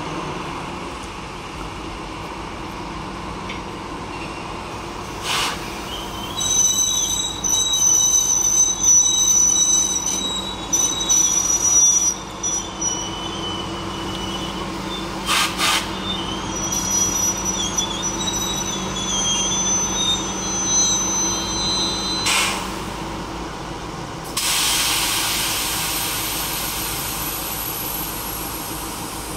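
Network Rail track tamping machine DR 73114 moving slowly past, its diesel engine running steadily. Its wheels squeal in several high-pitched tones from about six seconds in until about twenty-two seconds, with a few sharp clanks. A steady hiss comes in near the end.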